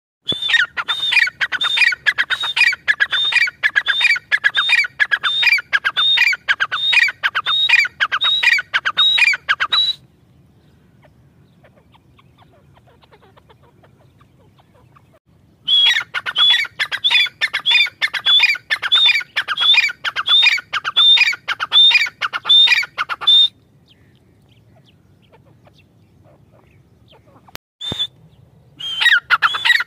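Gray francolin calling: a loud series of harsh, quickly repeated notes in long bouts of about ten and eight seconds with quiet pauses between them, and another bout starting near the end.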